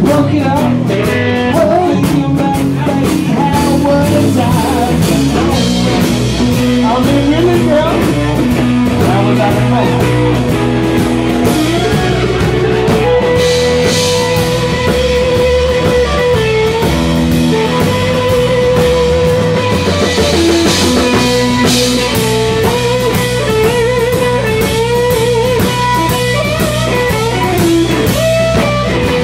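Live blues-rock band playing loud: electric guitar with long bending notes over bass guitar and drum kit.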